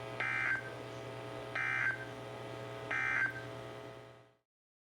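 Emergency Alert System end-of-message data burst: three short bursts of shrill digital squawk about a second apart, over a steady low hum. The audio then cuts off abruptly.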